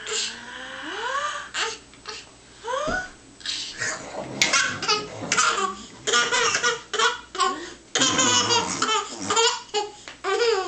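A child laughing hard in repeated bursts, with high rising squeals in the first few seconds.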